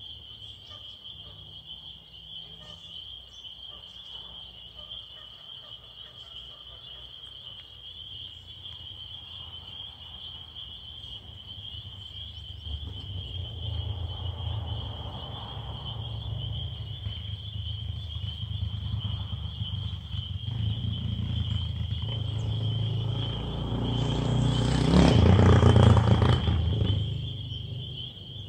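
Crickets trilling steadily in one high, even tone. About halfway through, a low rumble builds up and is loudest shortly before the end, then eases off.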